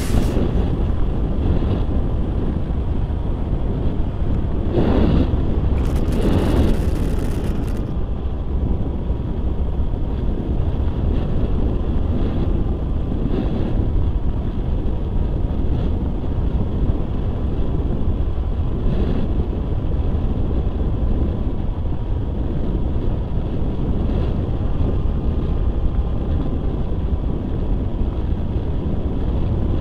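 Wind rushing over the onboard camera microphone of an FPV radio-controlled plane gliding with its motor at zero throttle, with a couple of louder gusts about five to seven seconds in.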